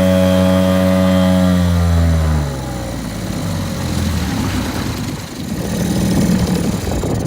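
Mariner 3.3 hp two-stroke outboard running at speed with a steady buzz. About two seconds in it is throttled back: the pitch falls and it settles to a quieter, rougher idle.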